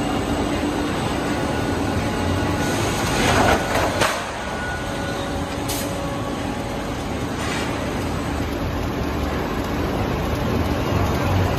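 Steady din of hot forging plant machinery around roller conveyors and a heating furnace. A loud rush of noise swells about three seconds in and ends with a sharp click, and two short hisses follow a few seconds later.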